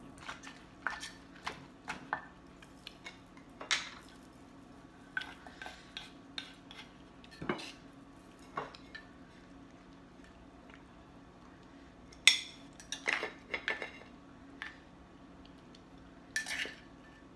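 Cutlery clinking against a dish in scattered, irregular clinks, with a louder flurry about twelve to fourteen seconds in and another near the end.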